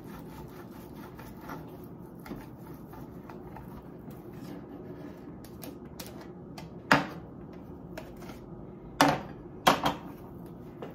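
Soft scraping and light clicking of boiled potato being worked on and scraped off a plastic grater over a wooden cutting board, with a few sharp plastic knocks about seven seconds in and again twice near the end.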